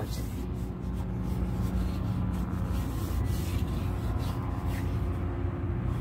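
Faint rubbing and handling of an olive-oiled wooden toy rifle, over a steady low hum.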